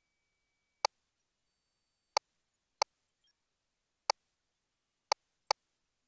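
Six sharp single clicks, irregularly spaced, with near silence between them: key clicks from the control panel of a GE Voluson ultrasound machine while a fetal measurement is taken.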